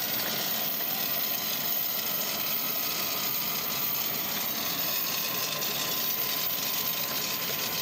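Steady high rushing hiss of a parked jet aircraft's turbine running, with a faint steady whine under it.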